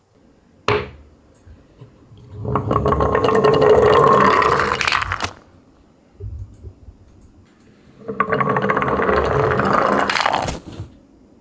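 Wooden toy garbage truck on small rubber-tyred wheels rolling down a wooden slope board and across a wooden floor, two runs of a few seconds each with a rumbling whir. A sharp single knock comes near the start.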